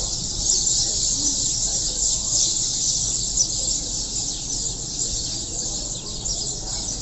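A flock of sparrows chirping all at once, a dense, steady chorus of many overlapping high chirps.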